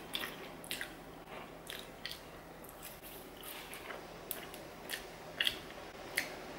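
Quiet, close-miked chewing of a mouthful of food, with scattered soft mouth clicks and smacks.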